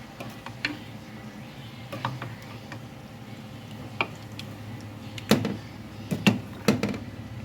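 Kitchen utensils clinking and knocking against cookware: a few light strikes, then sharper ones about five seconds in and twice more near the end, over a steady low hum.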